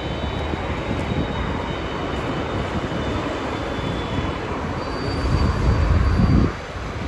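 Street traffic with an electric trolleybus passing: a steady low rumble of tyres and motor, with a faint high whine over it for the first few seconds. The rumble swells about five seconds in, then drops off sharply a moment later.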